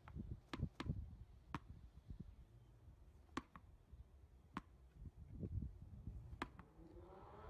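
A ball tossed against a brick wall and caught, giving sharp knocks every second or two over a faint low rumble.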